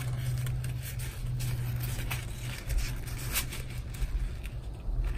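A steady low background hum, with faint rustles and light clicks of ribbon and thread being handled during hand stitching.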